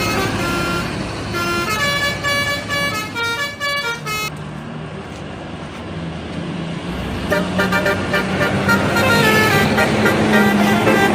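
Bus telolet horn playing a quick tune of changing notes, then breaking off for about three seconds while the bus engine runs, before the horn tune starts again about seven seconds in and grows louder.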